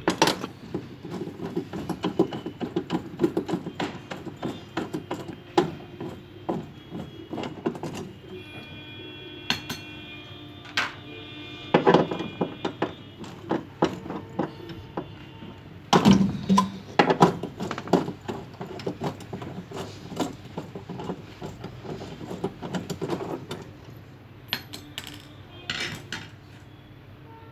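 Hand tools and metal washing-machine parts clinking, knocking and scraping in irregular clusters as the machine's mechanism is worked on by hand. The loudest knocks come near the start and again around the middle.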